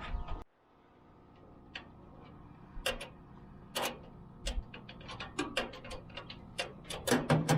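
Irregular metallic clicking from hand tools, a ratchet and a wrench, working nuts onto bolts while a steel tool cart is being put together. The clicks are sparse at first and come faster and louder in the last few seconds.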